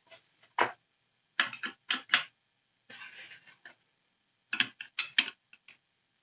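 Steel wrenches clicking and clinking against a CNC router's collet nut and spindle as the collet is tightened on a freshly fitted V-bit: a tap about half a second in, a quick run of four taps around two seconds, a short scrape near three seconds, and another cluster of clicks near five seconds.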